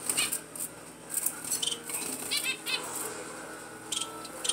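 Zebra finches and society finches fluttering their wings in short bursts as they fly about a wire cage, with a few short chirping calls about halfway through.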